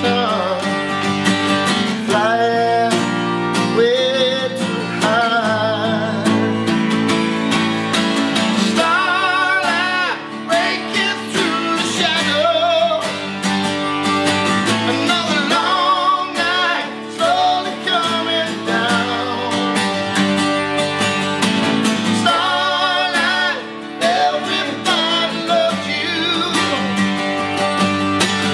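Two acoustic guitars strummed together, playing an acoustic song, with a man's voice singing phrases over them at times.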